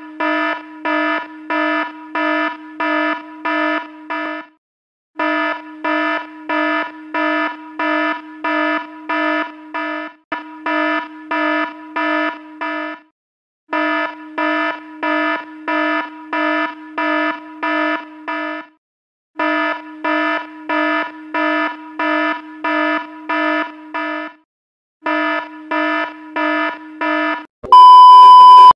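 Electronic alarm sounding in fast beeps, about two a second, in runs of four to five seconds with short breaks between. Near the end it gives way to a loud, steady test-tone beep.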